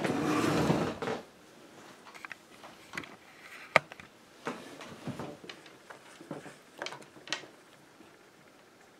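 Handling sounds on a tabletop: a brief rustling rush in the first second, then scattered light taps and clicks, with one sharper click near four seconds.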